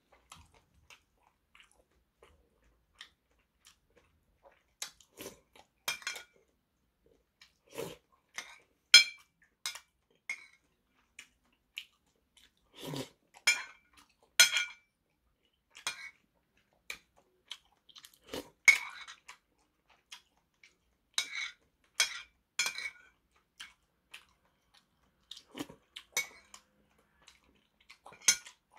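Metal spoon clinking and scraping against a porcelain soup bowl in scattered, irregular strikes, with chewing of dumplings and rice cakes in between.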